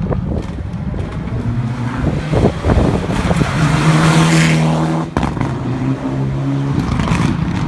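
Rally car passing at speed, its engine holding a steady high note for a few seconds, with a brief cut about five seconds in. Sharp cracks are heard in the first few seconds.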